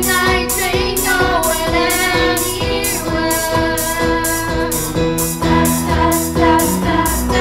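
Children singing a pop-style song over a backing track with a steady beat of about two a second.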